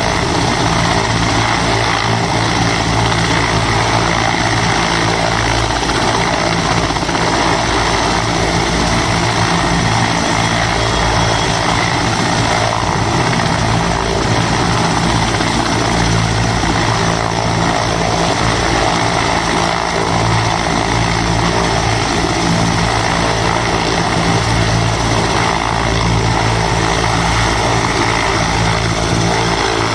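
Indian Air Force Mi-17 helicopter running on the ground, its twin turboshaft engines and rotors making a loud, steady roar that does not change throughout.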